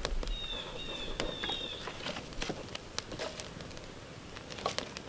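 Scattered crackles and clicks from a small wood campfire being poked with a stick, with a bird singing a short run of high whistled, down-slurred notes for about a second and a half near the start.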